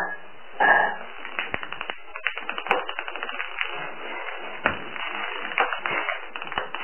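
Ping pong ball clicking and bouncing on a parquet floor as a kitten bats and chases it, with the patter of its paws on the wood. The clicks come in quick runs, densest in the middle, with a short louder burst under a second in.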